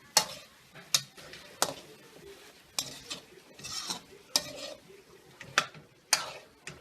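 A cooking utensil stirring food in a pan, knocking against the pan about seven times at uneven intervals with a longer scrape a little past halfway, as chicken, carrots and potatoes are sautéed.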